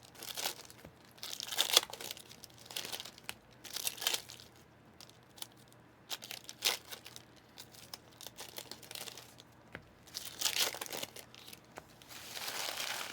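Trading card packaging crinkling and tearing as it is opened by hand, in several short rustling bursts with brief pauses between them.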